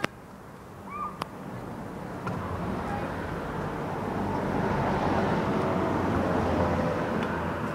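A car passing along the street: its tyre and engine noise swells to a peak about five to seven seconds in, then starts to fade.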